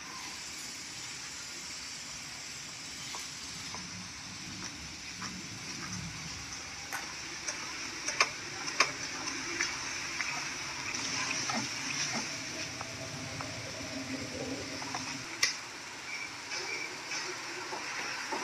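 Steady dry rustling of a dense mass of superworm larvae crawling over one another in bran substrate, with scattered sharp clicks.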